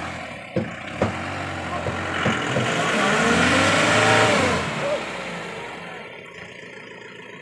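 Mahindra Bolero pickup's engine revving hard under load as the truck pulls up a muddy slope, its pitch rising and then falling over about three seconds before easing off. A few sharp knocks come in the first second.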